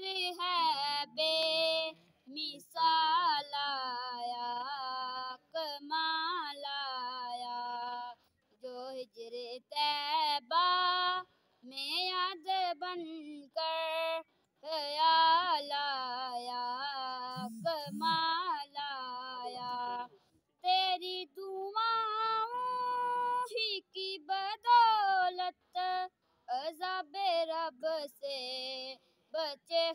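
A boy's solo voice singing an Urdu naat unaccompanied, with wavering, ornamented held notes and brief silences between lines.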